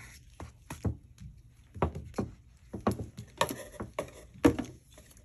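Irregular knocks and taps from a thick Garmin Livescope transducer cable being handled, its cable and connector bumping against the tabletop and kit, with the loudest knock near the end.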